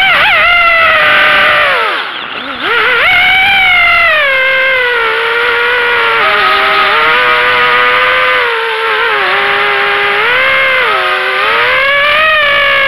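FPV quadcopter's four KingKong 2205 2300kv brushless motors, driven by LittleBee 30A BLHeli-S ESCs, whining in flight, the pitch rising and falling with the throttle. About two seconds in the throttle is cut briefly: the whine drops low and quieter, then climbs back.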